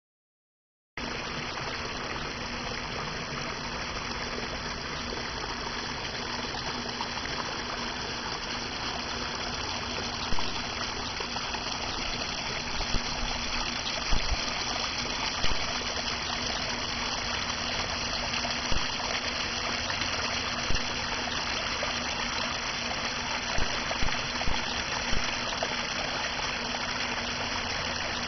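Water running and trickling steadily from a small backyard pond waterfall, starting about a second in. About ten short knocks sound over it in the second half.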